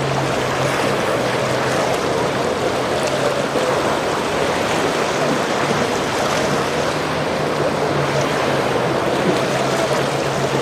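Boat under way: water rushing and splashing past the hull, over a steady low engine hum.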